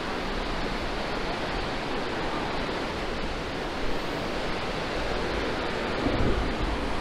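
Steady rushing of a mountain river's white-water rapids far below, with some low wind rumble on the microphone toward the end.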